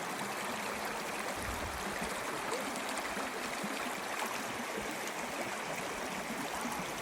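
Stream water running steadily, a continuous even rush.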